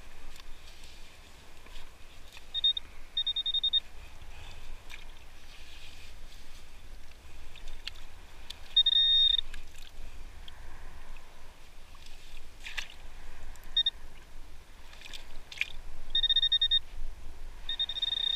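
Handheld metal-detecting pinpointer giving its high electronic alert tone in short bursts of varying length as it is probed through wet sand, signalling a metal target, a coin, close by. A few sharp knocks and scrapes of gloved hands working the sand come in between.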